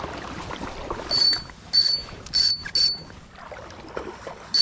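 Fishing reel's drag buzzing in short, loud bursts, four times in quick succession, as a hooked muskie takes line off the reel.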